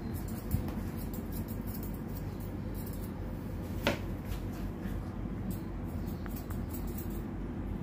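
Grooming scissors snipping a Pomeranian's coat: short, irregular snips over a steady low hum, with one sharper click a little under four seconds in.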